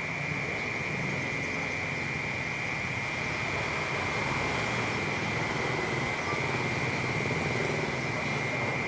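Cicadas droning in one steady, unbroken high buzz, over a low rumble of city traffic.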